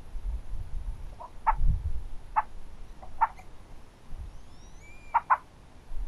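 Short, clipped animal calls outdoors: a few single notes spaced about a second apart, then two in quick succession near the end, with a thin high whistle just before them. A low rumble sits underneath, strongest early on.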